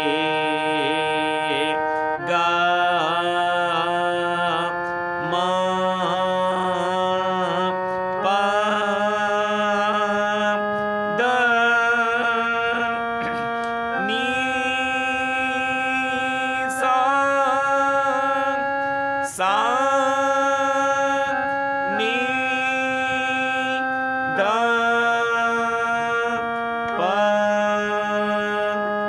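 Small electronic keyboard playing the sargam scale one note at a time. Each note is held steady for about three seconds, a four-count hold, before stepping to the next, about ten notes in turn.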